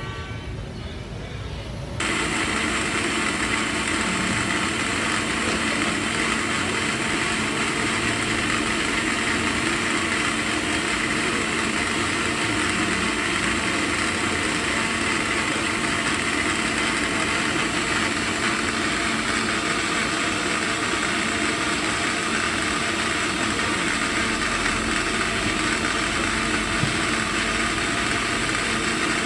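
A motor running steadily, like an engine idling close by, a loud even drone that sets in abruptly about two seconds in and holds without change.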